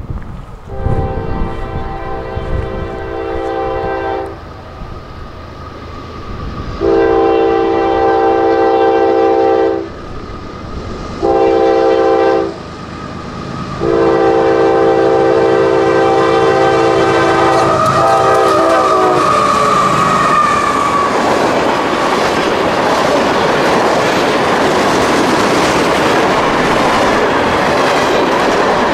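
Freight locomotive's air horn sounding the grade-crossing signal: long, long, short, long. The last blast drops in pitch as the locomotive passes. Then the steady rumble and clickety-clack of freight cars rolling by over the crossing.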